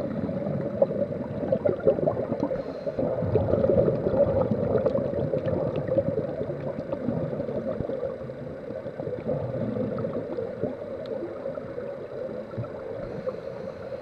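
Scuba divers' regulator exhaust bubbles gurgling, heard underwater, in an uneven wash with scattered faint clicks.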